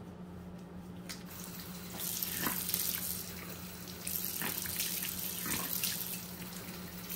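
Bathroom tap running into a washbasin, turned on about two seconds in, with water splashing over hands held in the stream as a face is rinsed.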